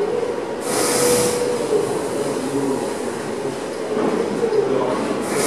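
Several 36×10W LED moving-head wash lights moving together: their pan and tilt motors give a whine that wanders in pitch over a steady whirring noise. Brief hissy surges come about a second in and again near the end.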